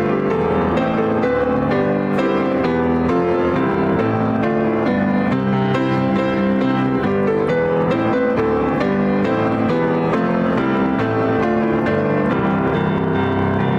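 Piano music: a steady, gentle instrumental passage of sustained chords and melody notes.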